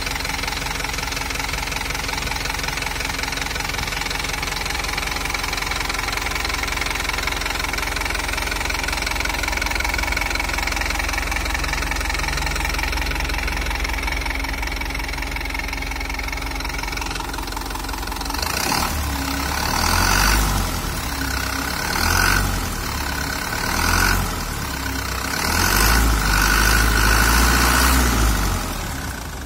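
The common-rail Euro 4 diesel engine of a Hino Dutro 136 HDX truck idling smoothly, a steady even hum with a faint whine above it. In the last third, several louder bursts of low rumble and hiss rise over the engine sound.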